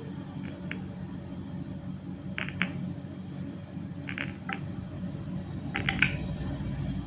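A steady low electrical hum, with pairs of light clicks about every two seconds.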